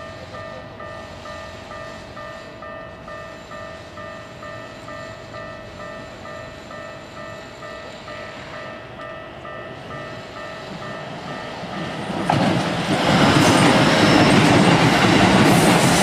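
A Japanese level-crossing warning bell rings as a steady repeating electronic ding, about two to three strokes a second. About twelve seconds in, a Keikyu 2100-series express train arrives and passes the crossing without stopping. Its running noise swells quickly and drowns out the bell.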